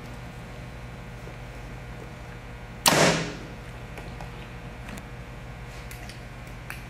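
A PSE Xpedite compound bow set at 65 pounds is shot once, about three seconds in. It sends a 383-grain arrow through a chronograph with one sudden sharp report that dies away in about half a second.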